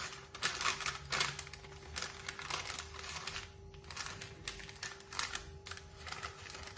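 Baking paper crinkling and rustling in irregular bursts as it is rolled and twisted into a piping cone.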